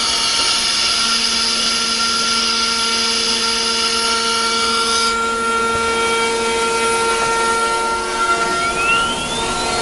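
CNC router running with a steady machine whine and a high hiss of cutting that stops abruptly about five seconds in. Near the end a whine rises steadily in pitch, as of the spindle speeding up.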